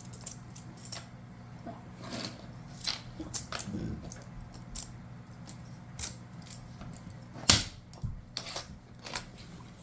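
Toy pieces clicking and clacking as they are handled: a scattered run of short, sharp knocks, one much louder about seven and a half seconds in, over a steady low hum.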